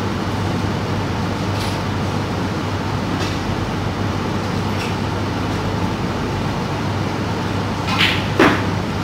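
A snooker shot over a steady background hum: near the end the cue tip clicks against the cue ball, and about half a second later the cue ball strikes an object ball with a sharper, louder clack.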